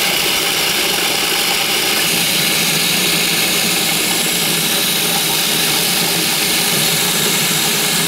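Electric food processor motor running steadily, its blade grinding sunflower seeds and garlic with ground hard cheese into a medium-coarse meal.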